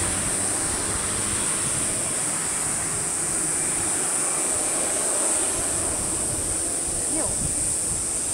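A distant Airbus A380's jet engines on its landing rollout, a steady broad rushing noise with no distinct tones, alongside a steady high-pitched hiss.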